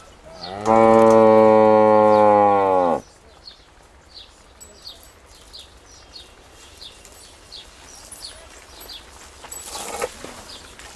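A cow mooing once: a single long, low moo of about two seconds that starts about half a second in and drops in pitch as it ends.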